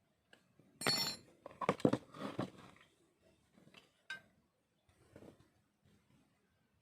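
Metal objects clinking and knocking: a ringing metallic clink about a second in, a few more knocks just after, then scattered faint taps.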